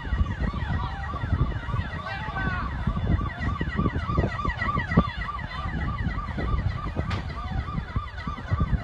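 Emergency-vehicle siren in a fast yelp, rising and falling about three times a second, over a heavy low rumble. A sharp click comes about seven seconds in.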